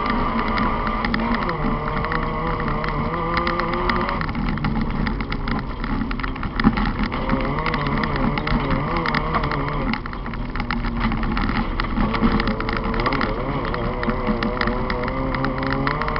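Volkswagen Polo dirt-track racer heard from inside the car, its engine working hard and its revs climbing and dropping constantly through gear changes and corners. Dense rattling and clicking, from loose stones and gravel striking the car and from the shell shaking over the rough surface, runs throughout.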